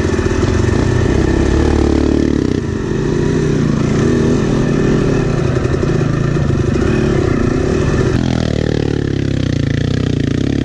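Yamaha YZ250X two-stroke dirt bike engine revving up and down while being ridden. About eight seconds in, the engine note drops away and glides lower.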